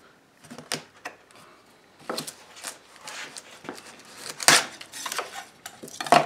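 Knife blade scraping and picking at hardened epoxy and clinging plastic sheet on a freshly glued wooden crown molding: short irregular scrapes and clicks, with a sharper knock about four and a half seconds in.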